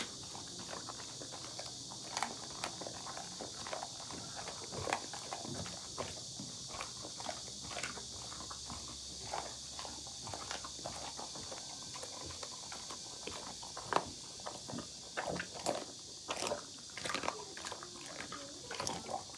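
A large Canary mastiff crunching a chicken frame, with irregular cracks of bone and wet chewing, thicker and louder in the last few seconds. A steady high hiss runs underneath.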